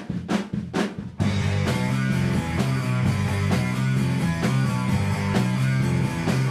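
Rock band of electric guitar, bass guitar and drum kit starting a song: a few quick, sharp drum strokes, then the whole band comes in about a second in and plays on with a steady beat.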